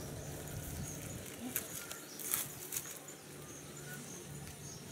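Faint crackling and rustling of hands picking apart the fibrous trunk of a chopped coconut palm, with a few sharp crackles about two to three seconds in, over a low steady hum and faint insect or bird chirps.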